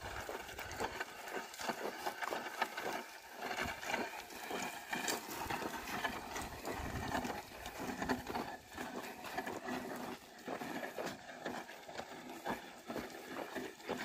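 A pair of oxen pulling a wooden plough through dry, stony soil: irregular hoof steps and footfalls over the scrape of the plough in the earth.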